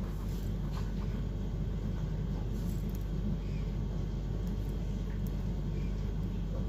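Steady low background rumble and hum, even throughout.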